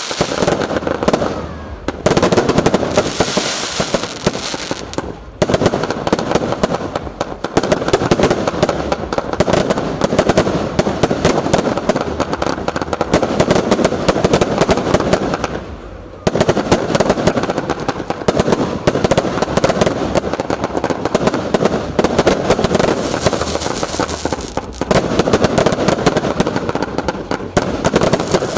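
Fireworks finale: a dense, continuous barrage of bangs and crackling, with brief lulls about two, five and sixteen seconds in.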